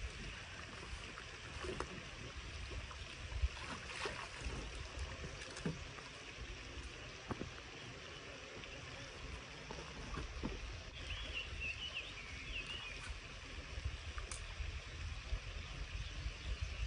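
Outdoor pond-side ambience: wind rumbling on the microphone over a soft steady hiss, with scattered small clicks of fishing tackle being handled as the rod is cast and reeled. A short high warbling chirp comes about eleven seconds in.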